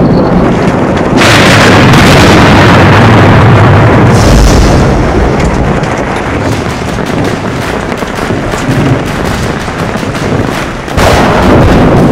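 Heavy rain and hail pelting a tent during a thunderstorm: a loud, dense roar with a deep rumble underneath. It starts abruptly, eases a little in the middle and swells again about eleven seconds in.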